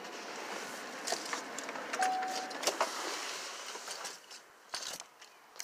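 Faint rustling and scattered light clicks inside an SUV's cabin, with one short steady beep about two seconds in.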